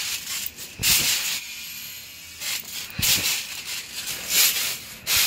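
Bouncing on a trampoline: a dull thump of the mat about every two seconds, each with a burst of rushing, rustling noise.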